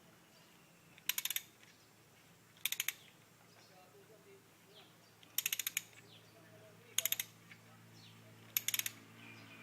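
A ratchet wrench clicking in five short runs of a few quick clicks each, about every second and a half, over a faint steady low hum.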